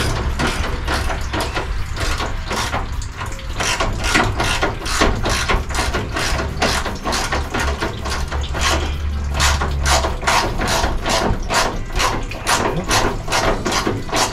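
Hand ratchet wrench clicking in quick, regular strokes, about three clicks a second, as bolts are backed out.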